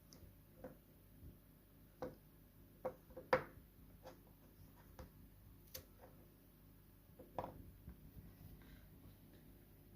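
A few light, separate clicks and taps from handling the opened chocolate bar and its packaging, the loudest a little over three seconds in.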